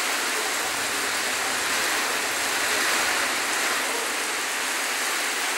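Heavy tropical rain pouring onto a paved street and the surrounding roofs and trees, a steady even hiss.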